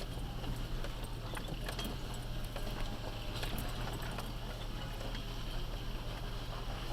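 Motorcycle running along with a steady low drone and a repeated knocking thump, which the rider puts down to a tire.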